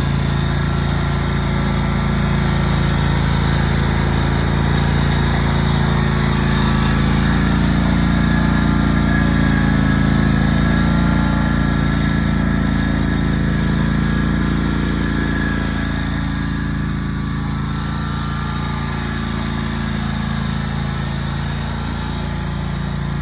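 Riding lawn mower engine running steadily under load while mowing, easing off slightly in the second half.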